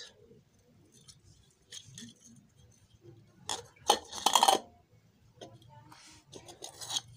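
Handling noise from small hard objects: scattered light clicks and clinks, with a louder clattering rustle about three and a half to four and a half seconds in.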